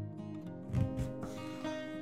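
Acoustic guitar background music. A chef's knife cuts through eggplant strips onto a bamboo cutting board, with two knocks of the blade on the board just under a second in.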